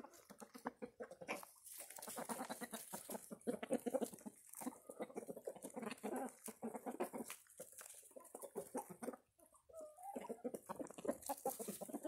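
A flock of chickens clucking as they feed at a trough: many short, overlapping clucks in quick succession.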